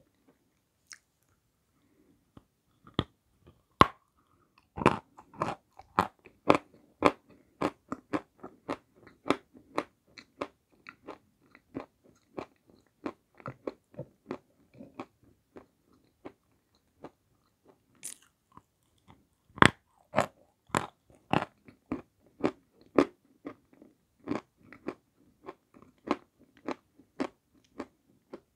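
Dry edible clay chunks bitten and chewed close to the microphone: sharp, crisp crunching cracks in quick runs of about two a second. There are sparse pauses over the first few seconds and again about two-thirds of the way through.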